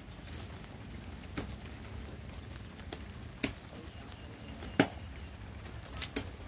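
Six sharp chopping knocks at uneven intervals, the loudest a little past the middle and the last two in quick succession, over a steady low rumble.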